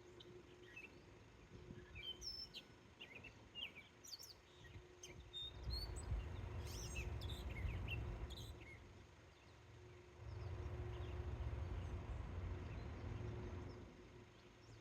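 Birds chirping, in many short, high calls, over a faint steady hum. About five seconds in, a low rumble comes up for a few seconds, and it returns a little after ten seconds.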